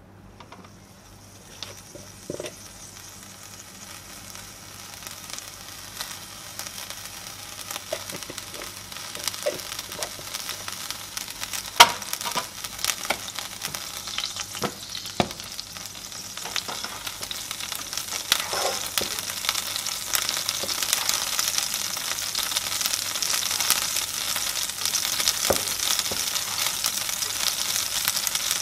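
Food sizzling in a hot pot as chicken and sauce are stirred into rice with a spatula. The sizzle grows steadily louder, broken by scattered scrapes and knocks of the spatula against the pot, the loudest about twelve seconds in.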